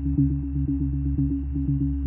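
Background electronic music with a quick, even pulsing beat over sustained low synthesizer notes.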